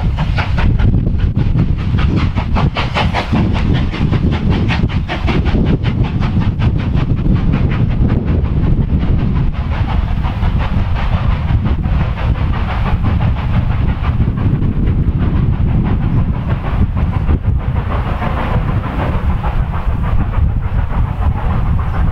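Steam train passing at a distance, its rapid regular beats strongest in the first half and fading later, under a constant low rumble of strong wind buffeting the microphone.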